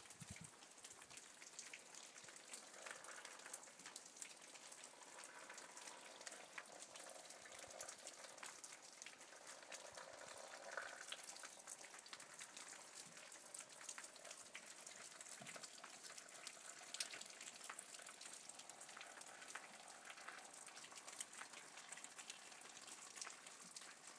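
Faint light rain: a soft, crackly hiss dotted with tiny ticks of drops.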